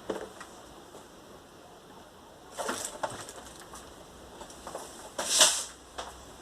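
Two brief scraping, rustling handling sounds about two and a half seconds apart, the second louder.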